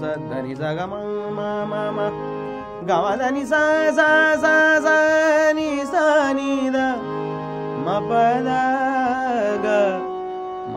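Harmonium playing sustained chords and melody in raag Bageshree, with a man singing long held, wordless notes over it during the introduction of a bhajan.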